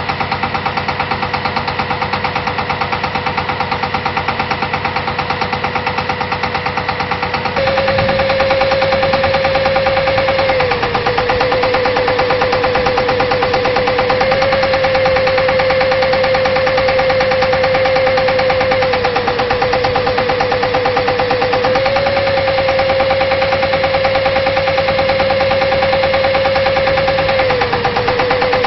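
Pneumatic well drilling rig at work: rapid, continuous hammering of the air hammer over a running engine. About a quarter of the way in the engine pitch rises and the hammering gets louder, and the pitch then dips and rises again a few times.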